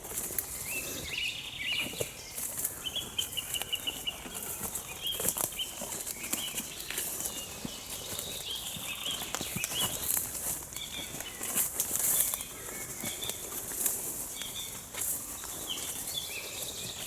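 Forest ambience with small birds chirping over and over, against a steady high hiss and scattered faint clicks.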